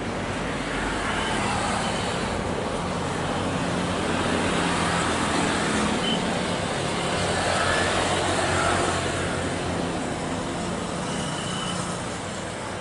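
Boeing 737-800's CFM56-7B jet engines at taxi power: a steady rush of engine noise with a few brief high whines. It swells a little past the middle and eases off near the end.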